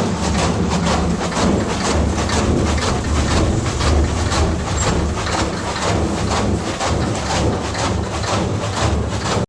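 Electric chaff cutter with a 2 HP motor running and chopping fodder: a steady motor hum under a fast run of blade cuts, stopping abruptly at the end.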